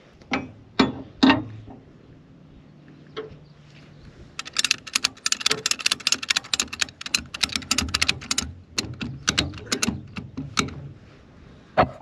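Ratchet buckle of a 2-inch ratchet strap being worked to tighten the strap: a few separate metallic clicks at first, then a long fast run of pawl clicks from about a third of the way in, stopping about a second before the end, with one last click near the end.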